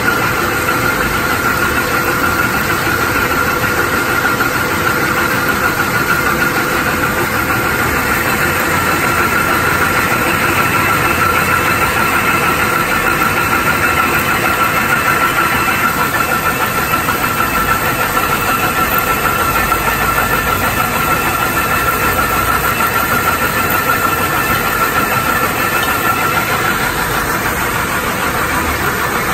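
Yongwon SP300 cone crusher running at 1050 rpm and crushing gravel: a loud, steady machine noise with a high whine over it.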